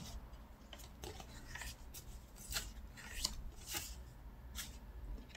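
Handling of postcards and paper: a few brief, soft rustles and slides as the cards are picked up and shuffled, mostly in the second half.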